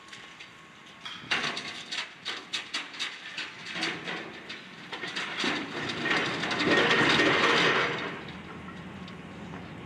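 Building debris clattering and crashing as an excavator demolishes the structure: a run of sharp knocks and clanks starting about a second in, swelling into a louder crash of about two seconds near the end that then dies away.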